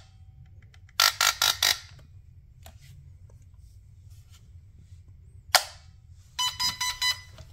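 Airsoft electric gun with a DSG gearbox and 47k brushless motor, fired on semi-auto: a rapid burst of several shots about a second in, a single sharp shot past halfway, then another rapid burst with motor whine near the end. Bursts on a single trigger pull mean the gun fails its semi-auto check.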